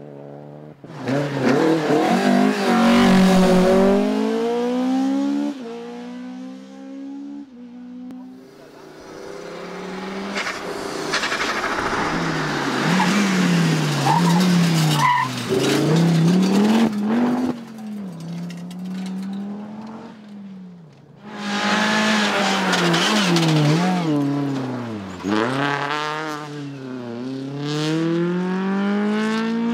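Rally car engine revving hard, its pitch climbing and dropping again and again through gear changes and lifts, with tyre squeal. It comes and goes in three loud stretches.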